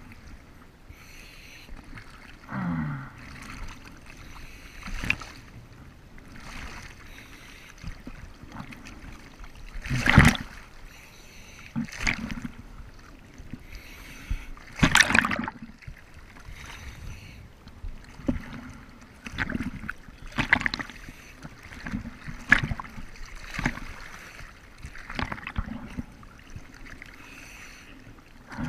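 Sea water splashing and sloshing around a camera held at the surface in choppy open water, in irregular bursts, the loudest about ten and fifteen seconds in.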